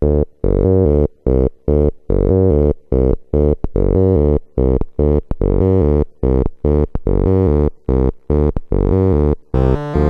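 Electronic music: a Step Sister step sequencer plays a repeating pattern of short, buzzy low synth notes, about three to four a second, through a delay. About nine and a half seconds in, higher Casio VL-1 keyboard notes join the pattern.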